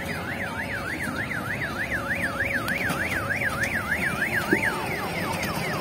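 Electronic siren sound effect from a children's mini train ride: a warbling tone rising and falling about three times a second, switching near the end to a quick run of falling chirps.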